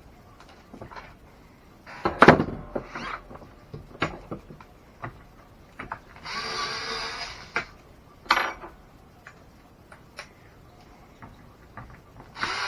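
Clicks and knocks of RC truck parts and tools being handled during disassembly, the loudest knock about two seconds in, with a brief steady buzzing sound of about a second starting about six seconds in.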